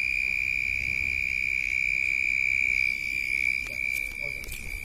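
Cricket trilling: one unbroken, steady high-pitched trill that grows fainter about three seconds in, with a few faint ticks near the end.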